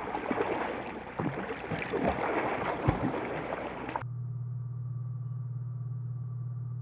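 Shallow sea water splashing and sloshing around people wading, with uneven crackles and thumps. About four seconds in it cuts off abruptly to a steady low hum in a dull, muffled recording.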